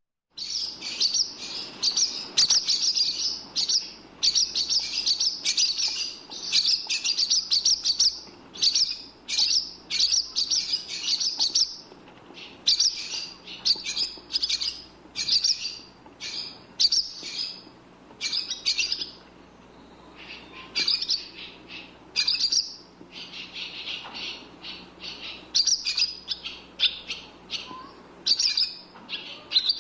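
A bird chirping: rapid high-pitched chirps in quick runs of a second or two, broken by short pauses, going on throughout.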